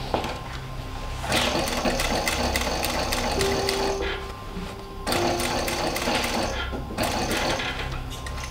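Pfaff single-needle industrial sewing machine top-stitching a denim jeans waistband, running in three bursts of rapid stitching with short pauses between.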